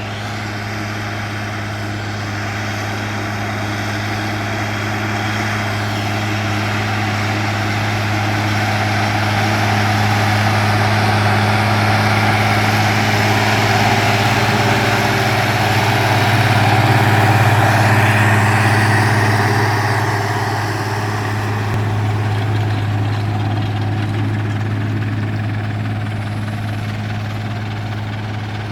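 Zetor 16245 tractor's six-cylinder diesel engine running steadily under load while pulling a disc harrow through the soil. The sound grows louder to a peak about two-thirds of the way through, then eases off.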